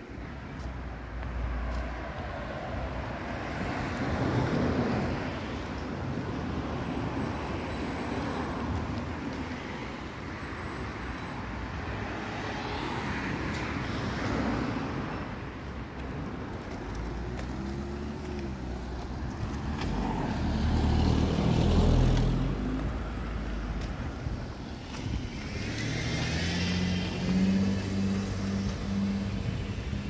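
Cars driving past on a city street one after another, each pass of engine and tyre noise swelling and fading over a few seconds. The loudest pass comes about three-quarters of the way through.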